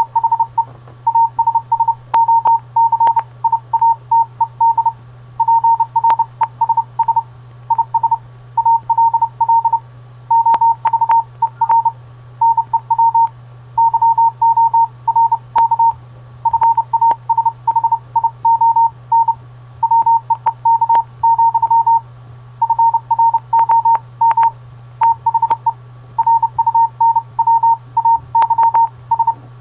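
Morse code: one steady beep tone keyed on and off in short and long beeps, grouped into letters and words with brief pauses between, over a constant low hum. Faint clicks now and then.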